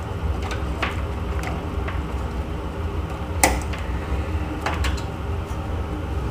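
Power-supply cables and plastic connectors being handled inside a crowded PC case: light rustling and scattered clicks, with one sharper click about three and a half seconds in, over a steady low hum.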